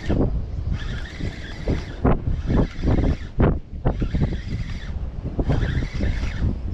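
Wind buffeting the microphone in gusts, a loud uneven rumble.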